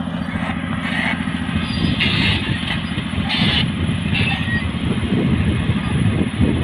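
Caterpillar D6R bulldozer's diesel engine running, its steady note turning rougher and louder from about two seconds in as it takes on load. A few short bursts of higher-pitched noise come through above it.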